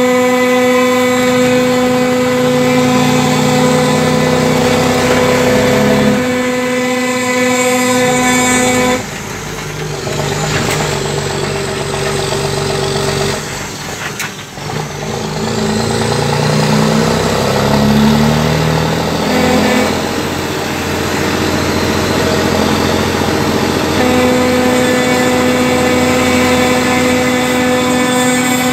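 Truck engine running as the truck drives, heard from inside the cab, with a loud steady drone. The drone cuts off suddenly about nine seconds in, gives way to rougher, shifting engine and road noise, and returns near the end.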